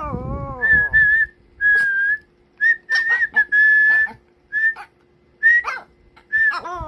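A person whistling a string of short, high, steady notes, and a Pomeranian answering the whistle with a drawn-out whine that falls in pitch, once at the start and again near the end.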